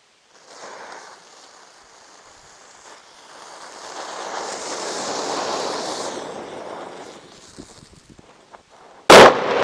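A coloured smoke bomb hissing as it pours out smoke, swelling over a few seconds and then dying away. A sudden loud burst cuts in near the end.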